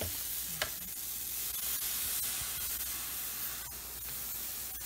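Dosa batter hissing and sizzling steadily on a hot tawa as it is poured and spread thin with a ladle, with one sharp click about half a second in.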